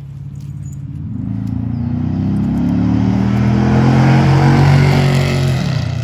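A motor vehicle driving past, its engine hum and road noise growing louder to a peak about four to five seconds in, then fading.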